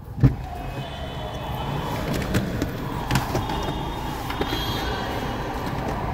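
A sharp thump, then a few light knocks and clatters as a passenger takes his luggage out of a car, over steady traffic and terminal noise.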